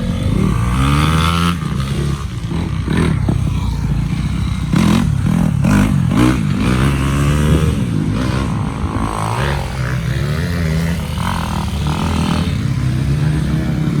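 Motocross dirt bike engine revving up and down repeatedly, its pitch climbing and dropping as the throttle is worked, with some brief clattering about five seconds in.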